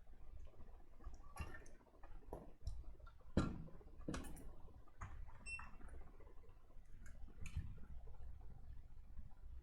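Faint, scattered small clicks and taps of hand tools against a circuit board while a replacement optocoupler is fitted and soldered, with one sharper knock about three and a half seconds in.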